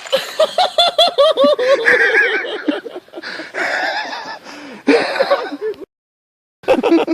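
People laughing hard in quick repeated 'ha-ha' bursts, breaking off for a moment of dead silence about six seconds in before more laughing and voices.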